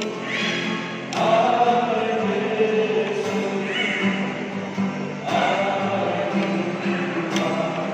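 Men's vocal group singing a hymn with long held notes, accompanied by an acoustic guitar.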